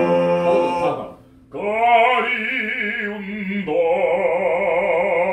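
A man singing in classical, operatic style: a held note that ends about a second in, then, after a short breath, two long sustained notes with a wide, even vibrato.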